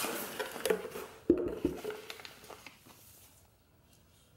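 Cardboard box being handled and opened, with paper rustling, light clicks and one sharp knock about a second in; the handling dies away near the end.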